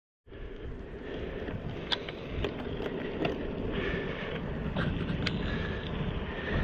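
Road bike riding on smooth asphalt: a steady rush of wind over the camera microphone mixed with tyre noise, with a few scattered sharp clicks from the bike.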